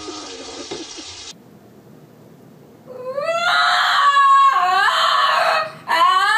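Small Shih Tzu-type dog howling. Starting about three seconds in, it gives long, high, wavering howls that glide up at the start and break off briefly between calls. Before that comes a faint hiss of running water from a kitchen sink.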